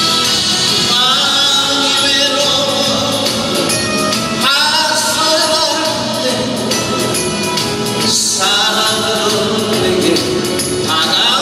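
Male trot singer performing live into a handheld microphone, his voice carried over amplified musical accompaniment.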